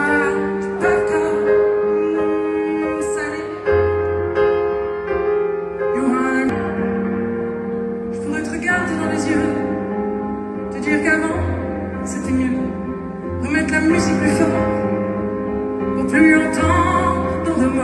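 Live pop song played on a grand piano, with a woman singing over held accompaniment chords.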